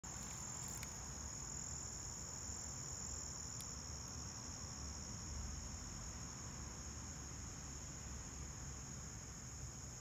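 Chorus of singing insects such as crickets: a steady high-pitched drone that runs without a break, over a low rumble.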